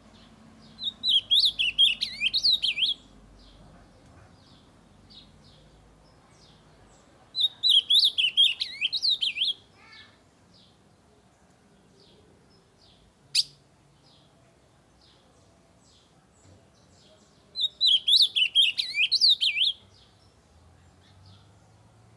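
Ultramarine grosbeak (azulão) singing three loud warbling phrases of about two seconds each, evenly spaced, with faint short chirps between them. A single sharp click about halfway through.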